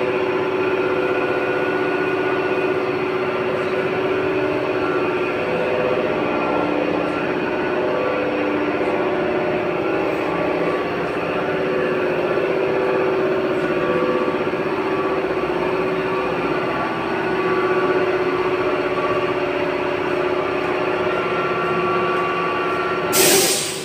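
Air compressor running steadily as it fills, together with the automatic mask-making machine, a continuous drone with several held tones. Shortly before the end a brief loud hiss, after which the noise drops: the compressor reaching pressure and stopping.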